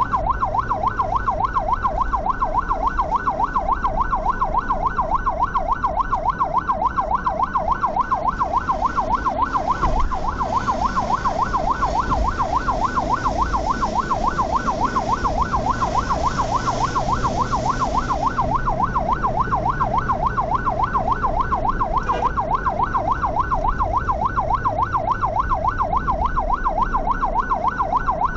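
Ambulance siren on a rapid yelp, sweeping quickly up and down several times a second without a break, over the low rumble of the vehicle's engine and tyres. Partway through, a hiss of an oncoming vehicle rushing past swells and fades.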